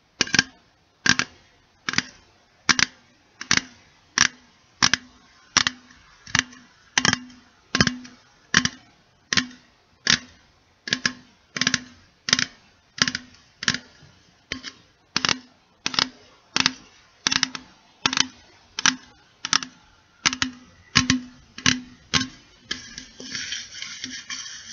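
Steady, evenly spaced taps on a can, about one every three-quarters of a second, each with a short ringing note. Near the end the taps give way to a faster scratchy rustling.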